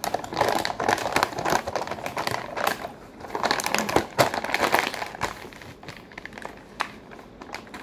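Brown paper bag being crumpled and folded by hand, a dense crinkling and crackling that thins to a few scattered crackles about five seconds in.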